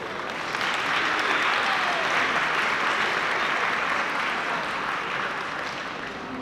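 Audience applauding at the end of a song, swelling about half a second in and tapering off near the end.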